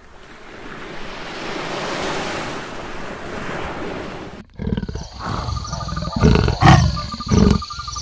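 Surf washing, swelling and fading over about four seconds. Then, about halfway through, a big cat, a leopard, starts growling in deep, rough, repeated strokes, loudest near the end, with a steady high-pitched trill behind it.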